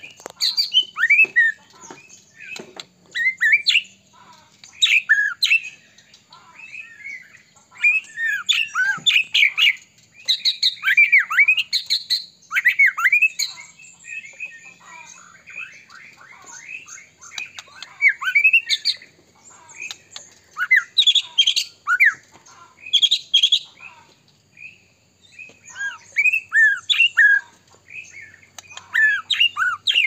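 White-rumped shama (murai batu) singing hard and continuously: a rapid run of varied, rich whistled phrases, sliding and warbling, in bursts of a second or two with short gaps.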